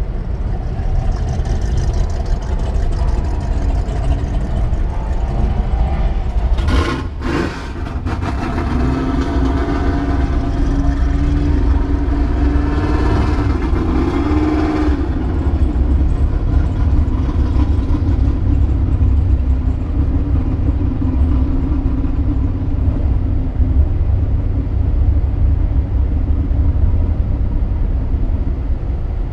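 Car engine running at low speed, heard from inside the cabin as a loud, deep, steady rumble. A steady hum sets in about a third of the way through, shortly after a brief knock.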